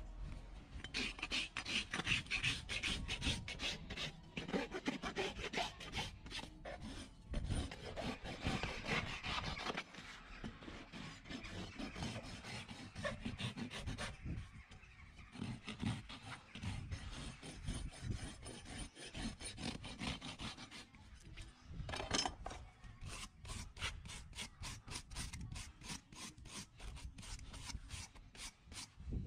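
Farrier's rasp filing a horse's hoof, a long run of quick back-and-forth strokes.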